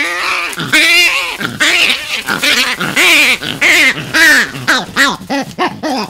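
Vervet monkey screaming: a loud run of arching squeals, about two a second, coming faster near the end.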